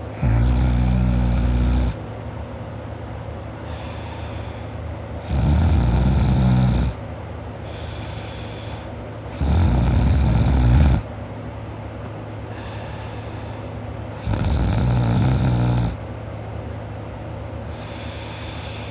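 A man snoring in his sleep: four loud, low snores of about a second and a half each, coming every four to five seconds, with quieter breaths between.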